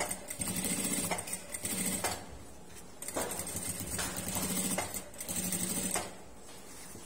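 Industrial lockstitch sewing machine stitching piping onto cloth, running in short runs of a second or two and stopping and starting several times; it falls quiet about six seconds in.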